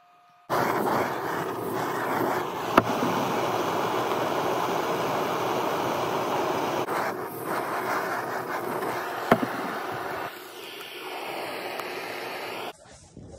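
A steady rushing noise that starts abruptly just after the start, holds for about ten seconds, drops to a quieter level and cuts off near the end, with two sharp clicks along the way.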